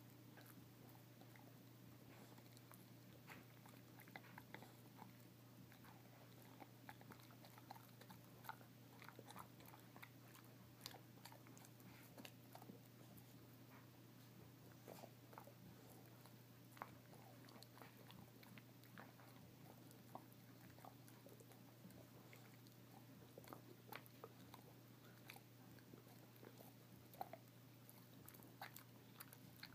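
A dog gnawing on a Busy Bone chew: faint, irregular crunching and clicking bites throughout, over a steady low hum.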